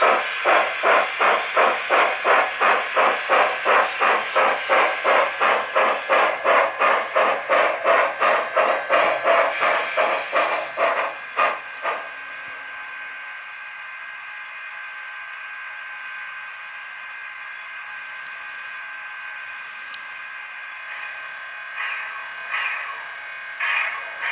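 Model steam locomotive's Loksound V5 sound decoder playing exhaust chuffs that slow and stop about halfway through as the locomotive comes to a halt, followed by a steady hiss while it stands idling. Slow chuffs start up again near the end as it pulls away.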